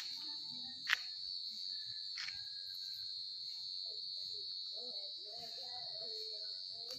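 Steady high-pitched insect chorus, one even buzz that holds unchanged throughout. Two faint clicks sound near the start and about a second in.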